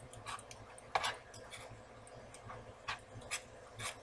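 A spoon tapping and scraping against a nonstick skillet as crumbled Italian sausage is stirred and broken up: irregular clicks, the loudest about a second in.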